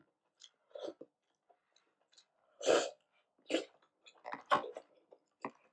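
Short mouth and breath noises of a person eating dumpling soup: a handful of separate bursts, the loudest about halfway through.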